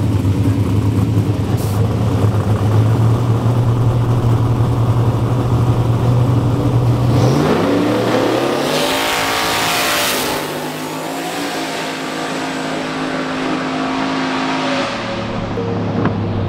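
Drag-racing cars, one of them a turbocharged 6.0 aluminium LS V8, running with a steady low note at the start line. About seven seconds in the engine note climbs sharply as they launch and accelerate down the strip, then carries on a little quieter as they pull away.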